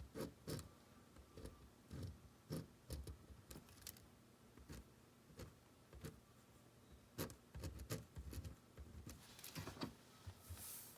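Soft, irregular taps and scratches of writing on the page, a dozen or so short clicks scattered over several seconds, with a brief breath-like hiss near the end.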